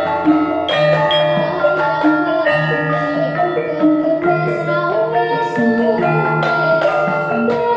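Javanese gamelan music: struck bronze keys and gongs ringing in a steady interlocking rhythm, with a girl's voice singing along through a microphone.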